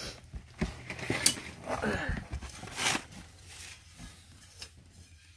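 Crumpled brown kraft packing paper rustling and crinkling as an item is pulled from a plastic tote and unwrapped, with a few short sharp knocks from handling.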